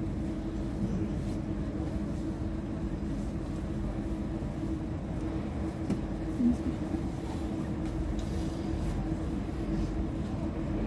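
Steady low hum inside an 81-726.1 'Baltiets' metro car standing at a platform, its onboard equipment running while the train waits to depart. A brief low blip about six and a half seconds in.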